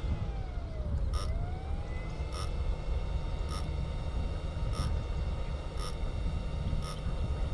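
Wind rumbling on the microphone, with a short electronic beep-click repeating about once a second from an electric eel-fishing shocker rig. A faint whine dips in pitch and rises again near the start.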